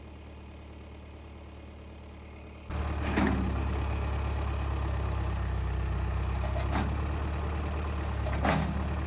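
An engine idling steadily, becoming much louder about a third of the way in, with three brief sharp sounds over it.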